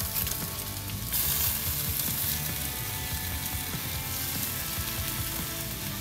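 Sauce-basted pork chops sizzling on a charcoal grill grate as barbecue sauce is brushed on, a steady hiss that grows louder about a second in.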